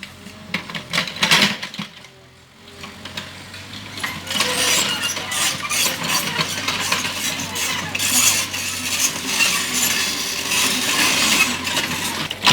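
Mini excavator working on site: its engine runs with a steady low hum under scattered metallic clinks, and a dense scraping, clattering noise builds about four seconds in.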